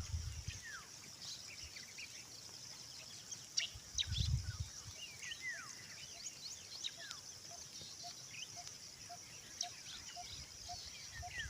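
Birds chirping outdoors, many short quick calls that mostly fall in pitch, over a steady high-pitched hum. In the second half a faint lower note repeats evenly a few times a second, and there is a brief low rumble about four seconds in.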